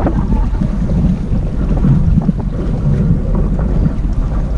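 Wind rumbling steadily on the microphone aboard an open fishing boat on the sea.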